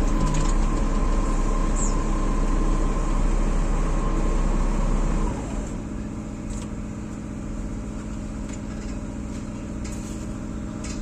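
A heavy machine's engine running steadily with a high whine, then dropping back about five seconds in to a quieter, steady idle.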